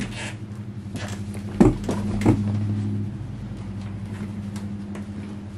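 A plastic Penny skateboard shifting under a standing rider on a hardwood floor, with two sharp knocks about a second and a half and two seconds in, over a steady low hum.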